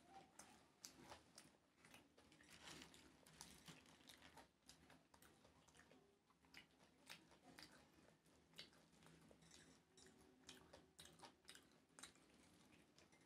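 Faint close-up chewing of a mouthful of jeera rice with curry, a run of irregular small wet clicks and crunches, along with fingers mixing rice on a banana leaf.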